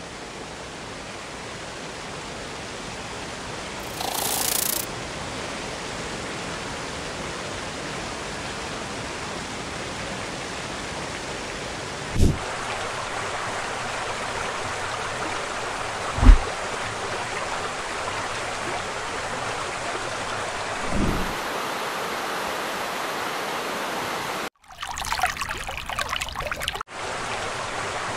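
Rushing white water of a river cascading over granite rocks: a steady, even rush of noise. Three short low thumps come in the second half, and there is a brief dropout near the end.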